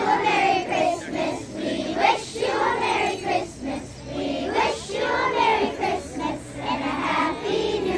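A group of young girls singing a Christmas carol together.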